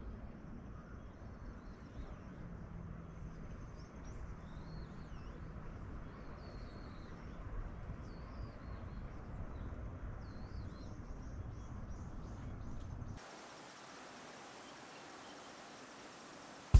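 Outdoor ambience: a steady low wind rumble on the microphone, with a bird giving short, twisting whistled calls about once a second through the middle. About thirteen seconds in, it cuts to a quieter, hissy background.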